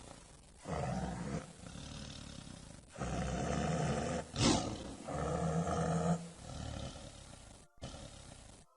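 Tiger roaring and growling in a string of about six calls, each roughly a second long, with short pauses between them.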